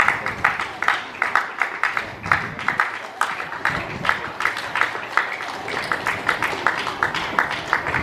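Spectators clapping, a few pairs of hands giving sharp, fairly even claps several times a second.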